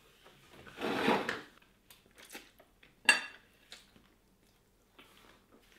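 Metal fork scraping and clinking against a plate while eating: a longer scrape about a second in, then a few separate clinks, the sharpest about three seconds in.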